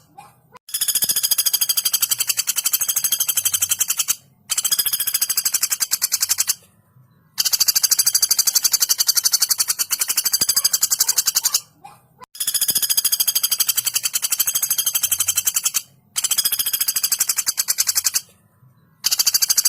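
Female common flameback woodpecker (pelatuk bawang) giving long, fast rattling trills in repeated bouts of two to four seconds, with short pauses between.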